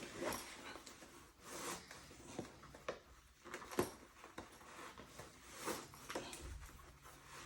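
Handling noises: a series of short rustles and light knocks at irregular intervals, the sharpest click just under four seconds in.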